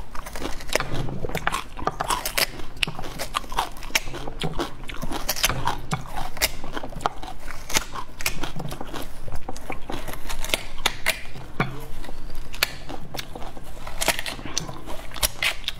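Fingers digging into and tearing the juicy red flesh of a mini watermelon: a dense, irregular run of wet crackles and squishes, close to the microphone.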